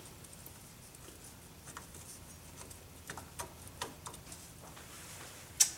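Faint, scattered light clicks and taps of small metal drum-brake parts being handled and fitted by hand, with a sharper click near the end.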